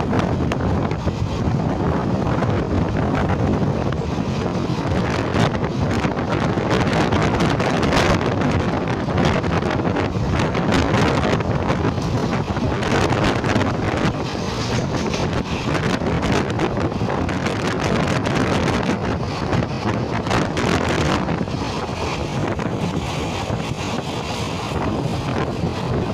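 Passenger train running at speed, heard from an open door or window: a steady rumble of wheels on rails, broken by frequent short clatters, with wind buffeting the microphone.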